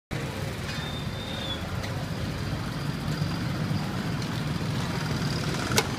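A steady low rumble, with a few sharp clicks of a metal spatula striking a flat metal griddle while thin crepes are spread and turned. The loudest click comes just before the end.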